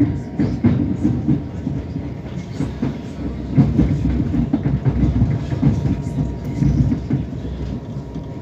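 A passenger train in motion, heard from inside the carriage: wheels rumbling on the rails with irregular clattering knocks from the track.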